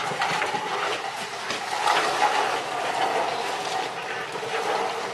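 A steady scraping rustle of a limp body being dragged across the floor, which stops abruptly near the end.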